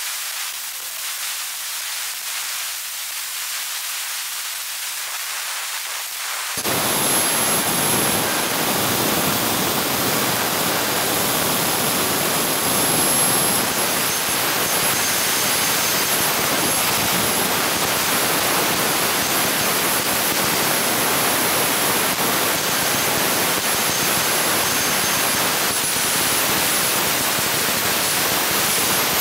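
Swiwin 240 N model jet turbine running steadily at part throttle, held at about 100 newtons of thrust: a loud rushing jet noise with a high, steady whine. The sound jumps abruptly louder and fuller about six and a half seconds in. Near the end the whine dips slightly and then climbs again.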